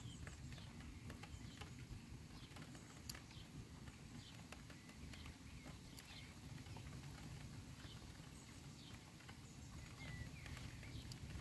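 Faint storm ambience: scattered raindrops ticking irregularly over a low, steady rumble.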